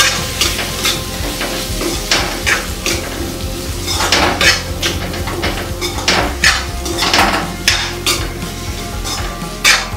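A metal spatula scrapes and stirs potato and cauliflower pieces around a metal kadhai in irregular repeated strokes, over a steady sizzle of frying in oil. This is the spice powders being mixed in and roasted.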